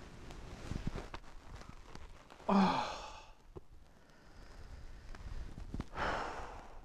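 A person sighing twice: a loud breathy sigh with a short low sound of voice in it about two and a half seconds in, then a softer breathy exhale near the end.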